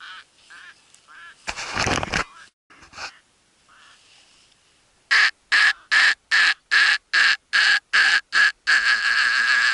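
Duck quacking: about five seconds in, a fast run of loud, evenly spaced quacks begins, roughly three a second, running together near the end. Before that come a few faint calls and a short rush of noise.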